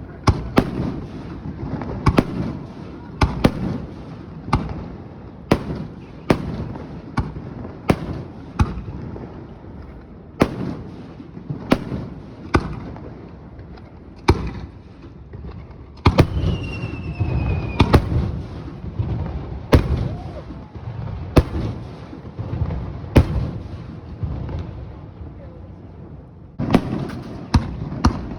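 Aerial fireworks shells bursting in quick succession: a long run of sharp bangs, about one every second, over a continuous low rumble of echoing booms. About halfway through, a short whistle falls slightly in pitch.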